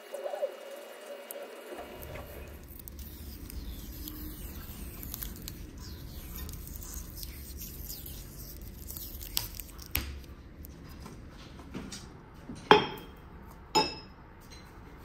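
Adhesive tape being unrolled and pressed around a steel knife blade, crackling and rustling. Near the end come two sharp metallic clinks about a second apart, metal against the anvil.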